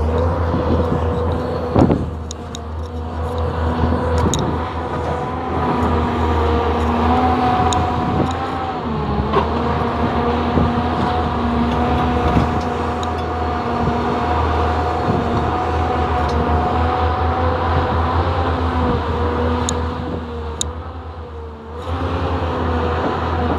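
Hyundai Robex 480LC excavator working: its diesel engine runs steadily under load with a hum and steady tones from the machine over it, and a few sharp knocks. The engine eases off briefly near the end, then picks up again.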